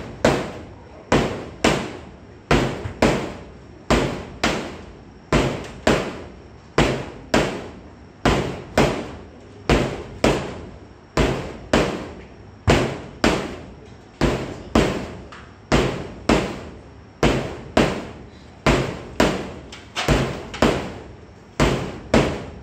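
Bread dough being lifted and slapped down onto a stainless steel work counter in repeated kneading strokes, a sharp slap a little more than once a second. This is hand kneading by slapping the dough against the bench.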